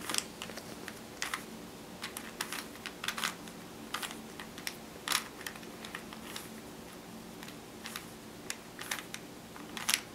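Plastic Rubik's Cube layers being twisted by hand, giving irregular short clicks and clacks as the faces turn in quick sequences.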